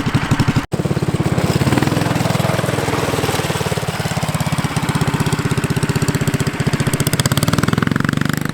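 Small engine of a homemade off-road go-kart running, with a rapid, even firing pulse. It cuts out for an instant under a second in, then carries on.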